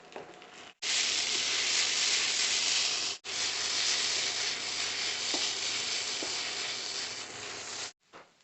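Food sizzling in hot oil in a frying pan during a vegetable and noodle stir-fry, a loud steady hiss with a couple of faint taps. It starts abruptly about a second in, drops out for a moment around three seconds in, and stops abruptly near the end.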